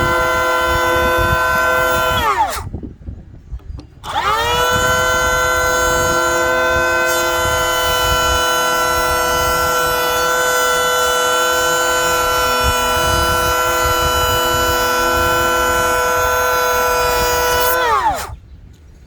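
DeWalt 20V XR brushless cordless hand planer running with a steady high whine while planing wood. It winds down about two and a half seconds in, starts again a second and a half later, runs for about fourteen seconds and winds down near the end.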